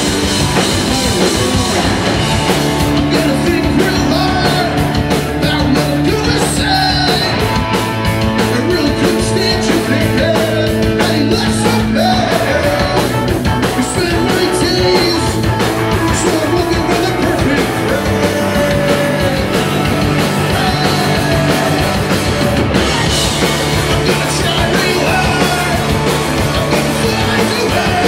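Punk rock band playing live and loud: distorted electric guitars, bass guitar and drum kit, with a man singing lead vocals.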